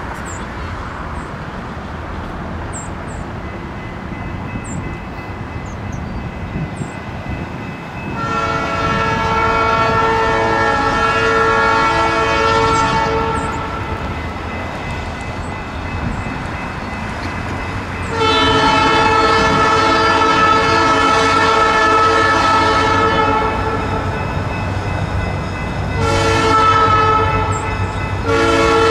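Nathan P3 air horn on an EMD SD45 diesel locomotive sounding the grade-crossing pattern as the train approaches: a long blast, a second long blast, a short one, then the start of the final long blast near the end. A steady low rumble runs underneath.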